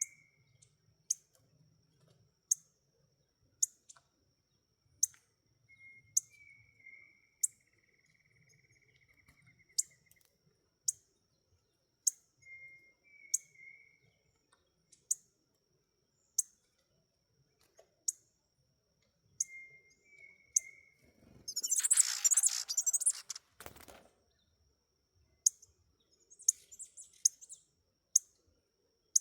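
Small songbirds calling: a sharp high chirp repeated about every second and a half, a few short lower whistles, and a louder burst of twittering song about three quarters of the way through.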